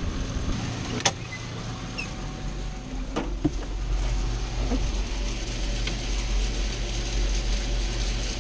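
An engine running at a steady idle, a low hum that grows stronger a few seconds in, with two sharp clicks, one about a second in and one about three seconds in.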